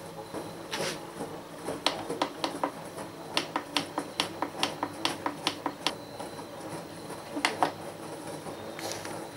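A run of sharp, short clicks, about three a second for several seconds, with a few single clicks before and after. A faint steady high tone comes in over the second half.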